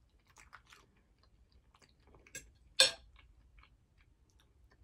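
A person chewing food close to the microphone, with soft wet mouth clicks throughout and one louder, short mouth sound about three seconds in.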